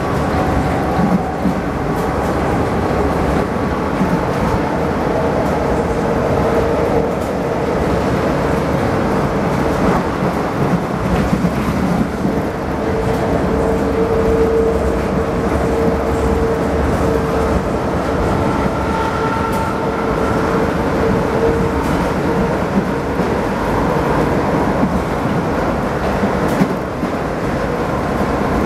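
San Diego Trolley light-rail car running on the rails, heard from on board. The steady rumble of the wheels carries a humming tone that grows stronger midway and then eases.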